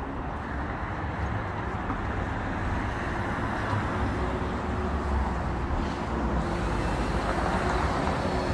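Road traffic passing on the street: a steady rumble and tyre noise that grows a little louder through the stretch.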